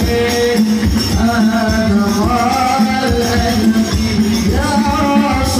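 Music with singing and percussion playing through a PA system run from an Ashley Hero 12 mixer: a sung melody over a steady beat.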